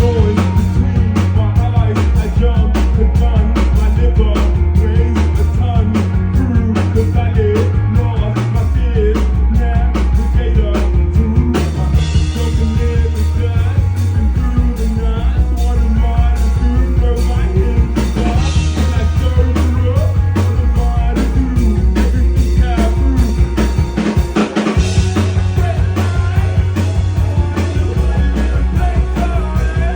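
Live band playing rock music: a loud bass line stepping between notes, a busy drum kit and guitar.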